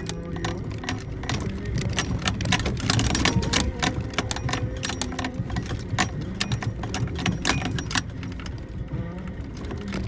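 Suzuki Jimny JB64's 660 cc turbo three-cylinder engine running under a steady low drone as the car rolls down a rough forest track. Frequent sharp clatters and rattles come from the cabin and loose items jolting over the bumps, with a song from the car stereo underneath.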